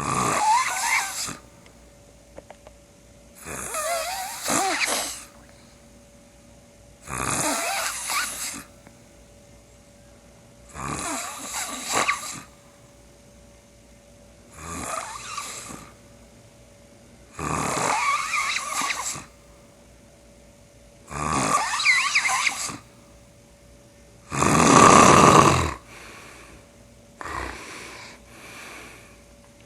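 A man snoring loudly in a steady rhythm, one snore about every three and a half seconds, each lasting about a second and a half; the loudest comes near the end, followed by a few weaker, broken ones. The uploader takes the heavy snoring for borderline sleep apnea.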